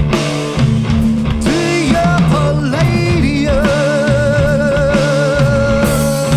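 Live band playing an instrumental stoner-funk passage: bass and drums under a lead melody that slides between notes, then holds one long note with vibrato from about halfway through.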